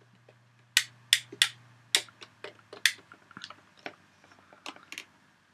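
Irregular sharp plastic clicks and knocks from a Lomography Smartphone Scanner's phone holder being handled and adjusted with a phone in it: five louder clicks in the first three seconds, then fainter ones.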